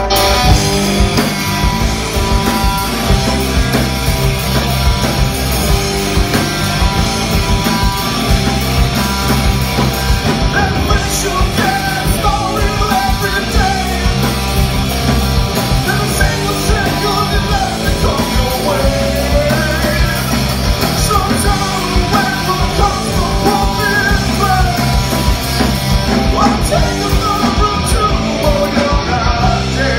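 Rock band playing live: electric guitar, bass and drum kit, with the full band and drums coming in right at the start after the guitar alone. From about ten seconds in a voice sings over the band.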